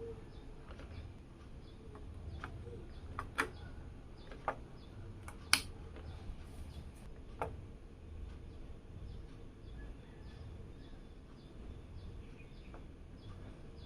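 A few sharp clicks and knocks, the loudest about five and a half seconds in, over a low rumble and a faint, evenly repeating high chirp.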